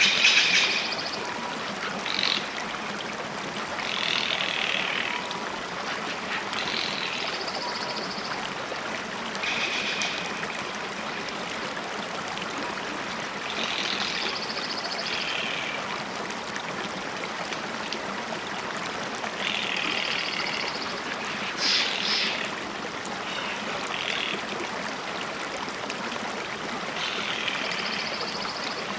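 A steady background hiss with short bird-like calls or song phrases repeating every few seconds, and a couple of louder sudden sounds at the start and about 22 seconds in.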